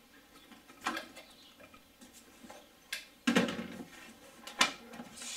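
Scattered clicks and knocks of hard plastic as a Mk3 VW Golf VR6's air filter housing is unclipped and its lid worked loose, the loudest clatter a little past halfway.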